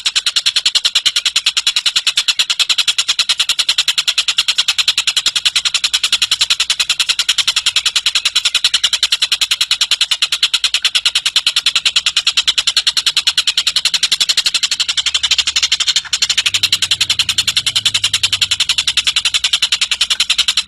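Tengek cililin bird calling in a long, fast, unbroken trill of high, evenly repeated notes.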